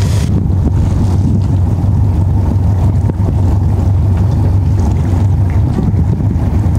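A sailing yacht's auxiliary engine running with a steady low drone as the boat motors among floating ice.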